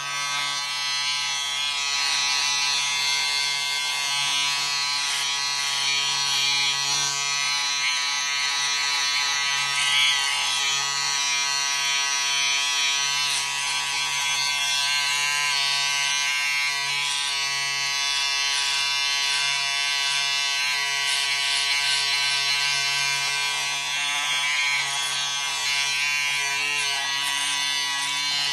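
Electric razor running with a steady buzz.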